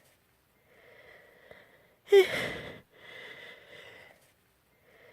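A girl sneezing once, about two seconds in, between breathy, gasping intakes of breath.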